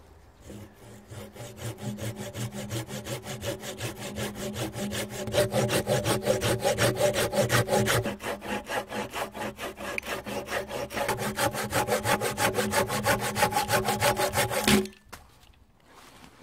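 Folding pruning saw cutting through a dead branch laid across a log, in fast, even back-and-forth strokes that get louder as the cut deepens. The sawing stops abruptly about fifteen seconds in as the blade goes through.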